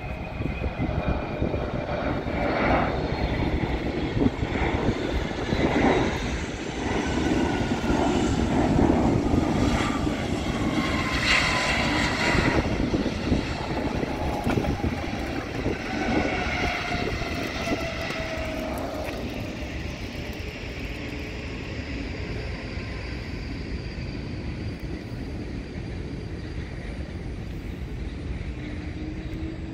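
Jet airliner engines heard from the airfield fence as the aircraft takes off and climbs out: a roar with a whine that slides steadily down in pitch, loudest about ten seconds in, then fading to a lower steady rumble.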